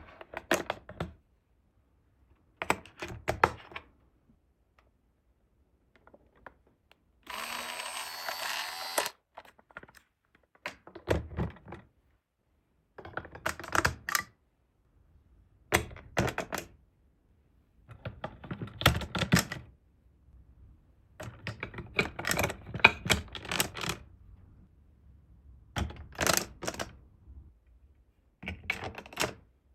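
Marbles clattering and rolling down a plastic building-block marble run, in short bursts of rapid clicking separated by silences. About seven seconds in, a steady rolling rush lasts about two seconds.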